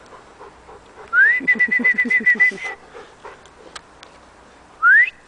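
A person whistling to call dogs back: a loud rising whistle that turns into a warbling trill for about a second and a half, then a second short rising whistle near the end.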